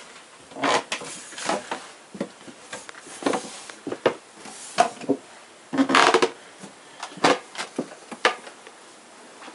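Footsteps climbing a wooden staircase: irregular footfalls on the wooden treads, roughly one a second, the loudest about six seconds in.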